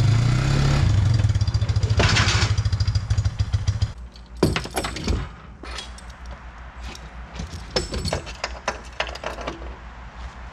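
An ATV engine running as the machine climbs onto a trailer, then shut off about four seconds in. Then a series of sharp metal clanks and clicks as tie-down straps are fastened to the trailer.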